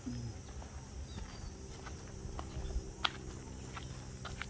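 Field ambience: a steady high insect buzz, like crickets, over a faint low steady hum, with scattered light clicks and ticks. The sharpest click comes about three seconds in.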